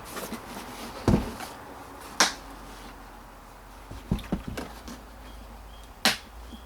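Scattered sharp clicks and knocks of hard plastic heater-box parts being handled, a few separate taps with a quick cluster a little past the middle.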